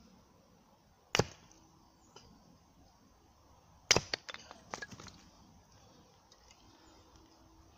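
Hatchet chopping kindling on a log chopping block: one sharp chop about a second in, then a louder chop about four seconds in that splits the piece, followed by a quick run of smaller knocks.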